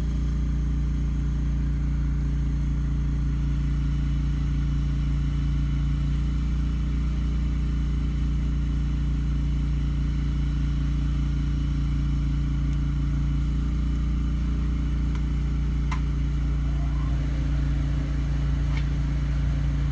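Oxygen-fuel bench torch burning with a long blue flame, giving a steady low rush with a fine rapid flutter in it. Two faint clicks come near the end.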